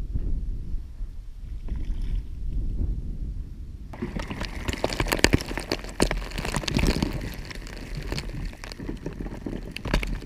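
A low rumble of water and handling, then, from about four seconds in, a cast net full of pilchards hauled out of the water, with water streaming and splashing off the mesh and many sharp spatters and clicks from the bait inside.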